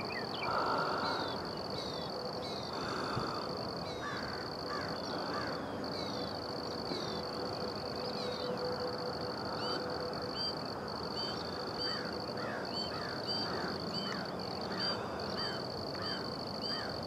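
Birds chirping and whistling at dawn, many short calls repeating over a steady high-pitched insect buzz, with a few harsher caw-like calls near the start.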